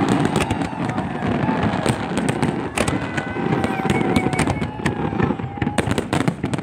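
Fireworks display: a dense, continuous crackle of bursting aerial shells and crackling stars, with sharper bangs about three seconds in and again near the end. Thin whistling tones sound through the middle.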